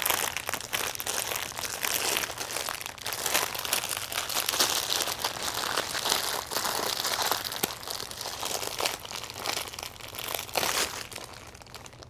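Crinkly packaging rustling and crackling irregularly as a party decoration is handled and unwrapped, tapering off near the end.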